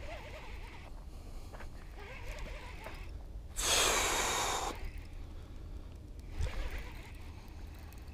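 Baitcasting reel's spool whirring for about a second as line pays out on a cast, starting abruptly and fading, over a steady low rumble.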